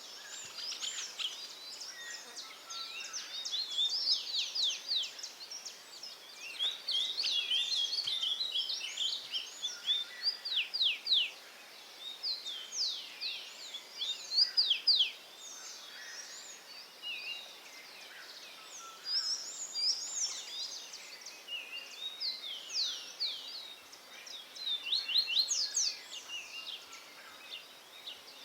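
Several wild birds chirping and singing at once: quick runs of short, high, downward-sliding notes in bursts, with pauses around twelve and twenty-three seconds in, over a faint outdoor hiss.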